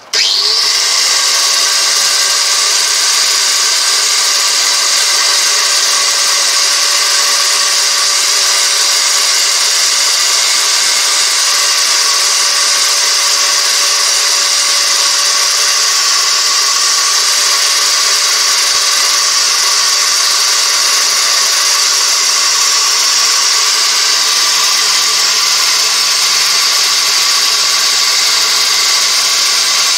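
Angle grinder fitted with a well-worn polishing disc spinning up right at the start, then running at a steady whine while polishing the bevel of a high-carbon steel knife blade.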